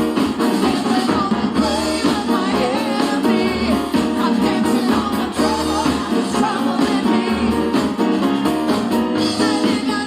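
A church praise team singing a gospel worship song with a live band. Voices carry a wavering melody over a steady beat.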